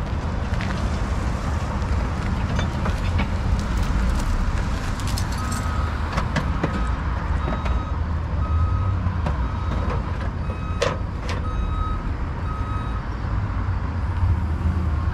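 Heavy truck's diesel engine running with a deep, steady rumble, its reversing alarm beeping at an even rate for about eight seconds in the middle while it backs up. A couple of sharp knocks come near the end of the beeping.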